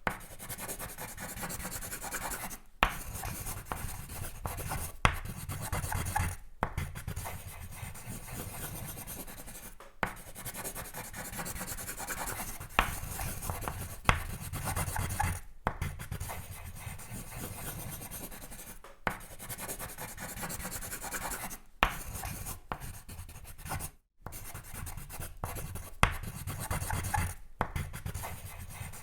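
Pencil sketching on paper: scratchy back-and-forth strokes and shading, broken by short pauses every few seconds, with an occasional sharp tick as the pencil point meets the paper.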